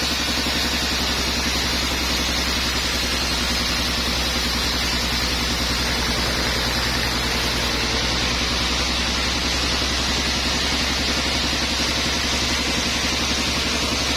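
Sawmill machinery running steadily: an even engine drone with a constant low hum and a hiss, with no change in pitch or load.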